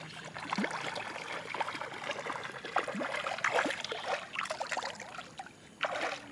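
Water splashing and trickling, with many small drips and splashes and a louder splash of noise near the end.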